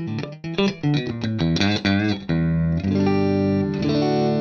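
Maybach Stradovari Strat-style electric guitar played through an amp with a clean tone: a quick run of single notes, then chords left to ring from about two seconds in, with bright, prominent overtones and a slight pitch waver near the end.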